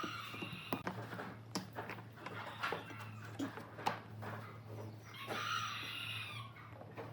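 A rooster crowing, a short call at the start and a longer one about five seconds in, over a series of sharp taps and knocks and a steady low hum.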